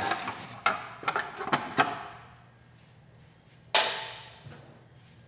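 Tools and small hard parts being handled during the fender fitting: a quick run of clicks and clacks, then one sharp knock with a ringing tail nearly four seconds in.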